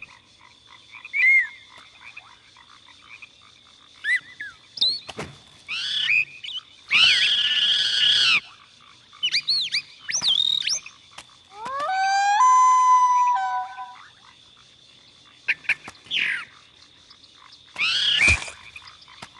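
A bird calling: a string of short chirps and whistles with quick pitch sweeps, some harsh and raspy, and one longer call about twelve seconds in that rises and then holds its pitch.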